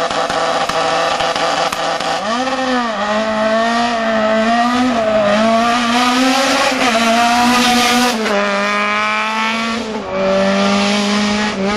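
Renault rally car's engine held at steady revs, then launching hard from a standing start about two seconds in and accelerating away through the gears, its pitch climbing and dropping back at each of several upshifts.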